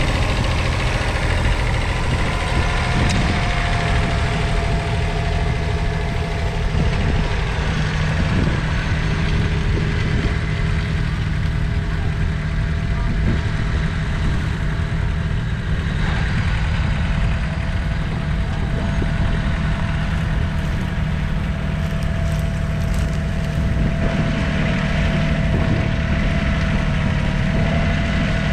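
1994 Kubota B7100D's 0.8-litre three-cylinder diesel running steadily under load as the tractor pulls a single-furrow plough through the soil.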